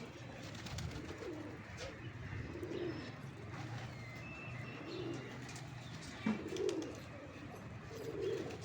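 Domestic pigeons cooing, low soft coos repeating every second or two, with a sharp click about six seconds in.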